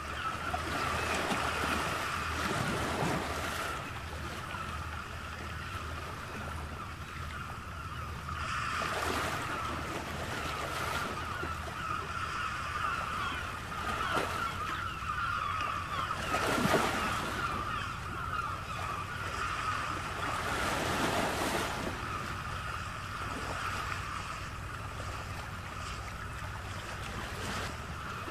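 Ocean waves washing in, the surf swelling and falling back every few seconds over a steady rushing background.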